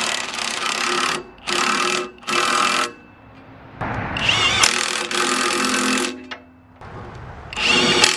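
Cordless impact driver run in about five short bursts, tightening the nuts on the chipper knife's bolts.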